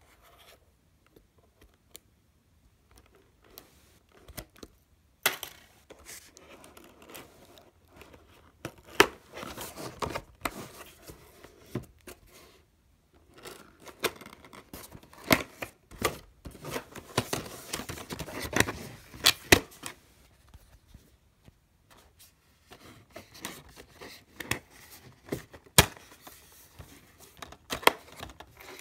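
Clear adhesive tape seal being peeled off a cardboard box flap, crackling and tearing in irregular spurts from about five seconds in, followed by scattered clicks and rustles of the cardboard flap being lifted and handled.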